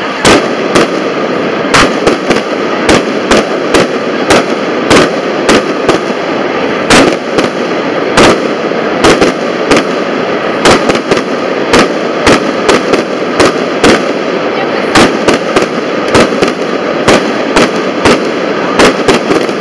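Fireworks firing a rapid, irregular string of sharp bangs, about two a second, over a steady noisy background.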